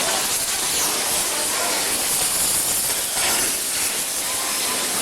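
Steady hissing noise with no clear tone or rhythm.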